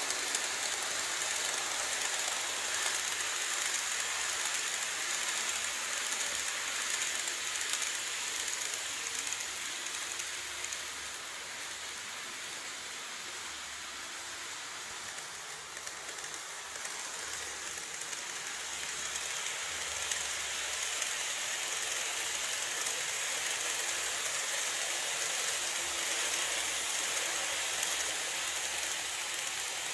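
N-gauge model trains, an E351-series and an E233-series, running on the track: a steady high hiss of wheels and motors. It fades for a few seconds in the middle and grows again as the trains come back past.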